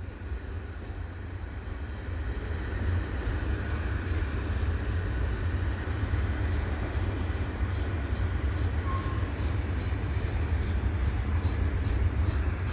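Freight cars of a slow-moving mixed freight train rolling past: a steady low rumble of wheels on rail that grows louder over the first couple of seconds, then holds.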